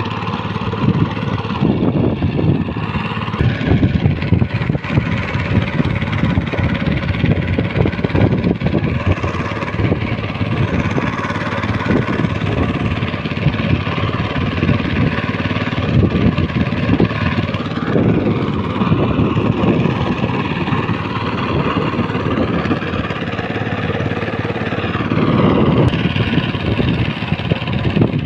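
Boat engine running steadily with a rapid low chugging, the boat under way through floodwater.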